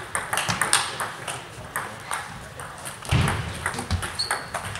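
Table tennis balls clicking off bats and tables from several rallies at once: an irregular patter of sharp ticks. There is a duller low thump about three seconds in.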